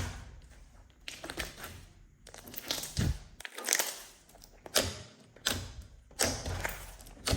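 Slime being squeezed and folded by hand: a string of wet, crackling squishes, roughly one or two a second.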